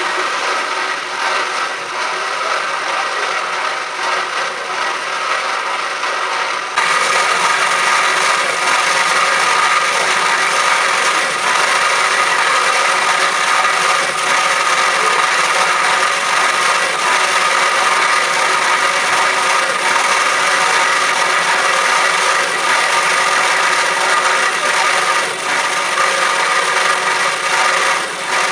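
Cormak S-280R semi-automatic metal-cutting band saw running, its blade sawing through metal stock with a steady noise. The sound jumps louder and brighter about seven seconds in.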